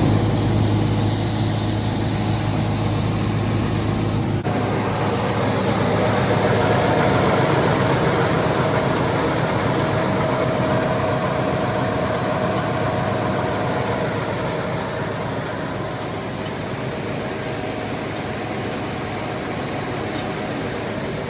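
Combine's diesel engine idling steadily while it warms up. The sound shifts abruptly about four seconds in.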